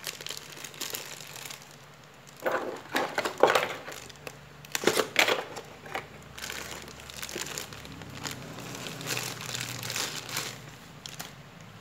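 Thin clear plastic bag crinkling in the hands in irregular bursts as the power adapter packed inside it is handled. It is loudest between about two and six seconds in, then lighter.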